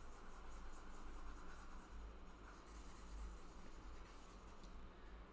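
Faint scratching of a stylus rubbing across a pen tablet's surface, with a light click near the end.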